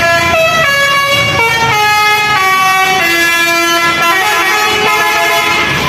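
Basuri telolet horn on a bus playing a melody: a run of held horn notes stepping up and down in pitch one after another, cutting off just before the end.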